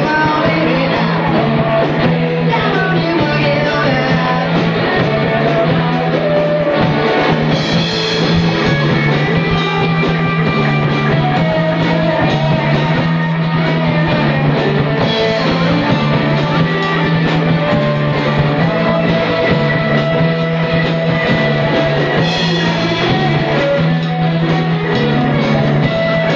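Amateur rock band playing live: electric guitars, bass and drum kit, with a singer on the microphone, a continuous rock cover with no breaks.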